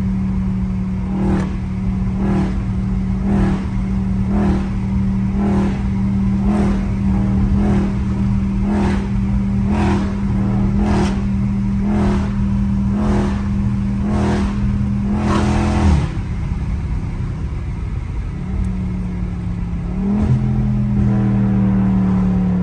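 Straight-piped, catless Dodge Charger Scat Pack's 392 Hemi V8, heard from inside the cabin, running at a steady pitch on the move with a regular knock about twice a second. About two-thirds of the way through the engine note drops away, then climbs again near the end.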